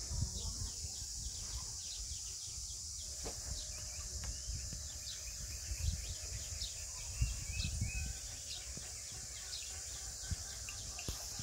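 Outdoor farmyard ambience: small birds chirp over and over above a steady high hiss, with a low rumble underneath.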